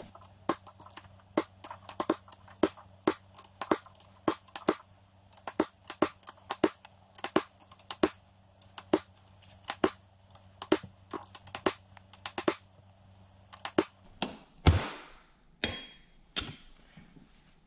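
Hammer blows on a steel punch driving a ball bearing down onto a Toyota W52 manual transmission output shaft, struck at about two a second until the inner race seats against the snap ring. The taps stop after about twelve seconds, followed by a heavier thump and a couple of ringing metal clinks.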